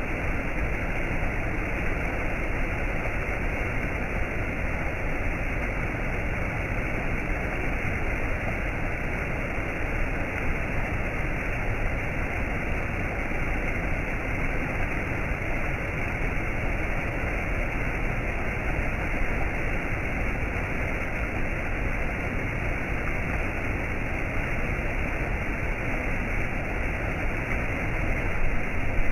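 Rushing water, steady and unbroken.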